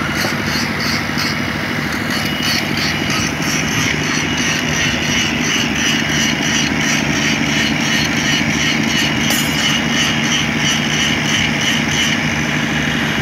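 The engine of a truck-mounted rail flash butt welding plant running steadily at a constant speed.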